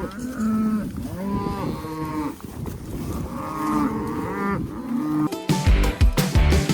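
A herd of cattle mooing, many overlapping calls from several animals one after another. About five and a half seconds in, music starts.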